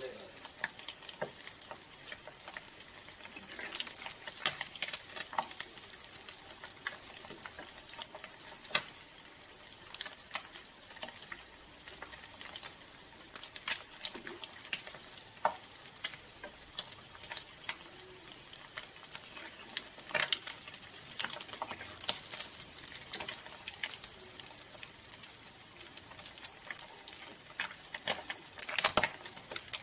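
Fish frying in hot oil in a wok: a steady sizzle with frequent sharp crackles and pops, with a burst of louder crackling near the end.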